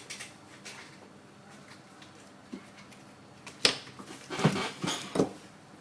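Quiet handling, then four or so sharp clicks and knocks in the last two seconds, from a Nokia 6720 classic mobile phone being handled and pried apart; the first click is the loudest.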